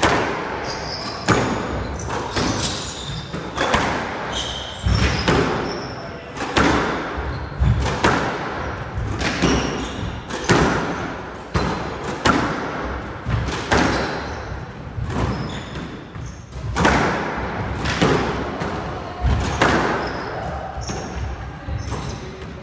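Squash rally: the ball struck by racquets and hitting the walls in a steady exchange, a sharp hit about every second or so, each one echoing around the enclosed court.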